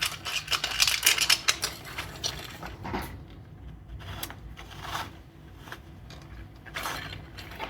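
Hard 3D-printed plastic parts of an articulated owl clicking and rattling as they are handled. There is a quick run of clicks over the first two seconds, then scattered single taps.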